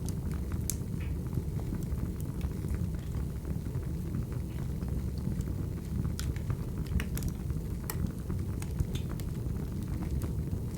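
Firewood burning and crackling: a steady low rumble of flames with scattered sharp pops and snaps.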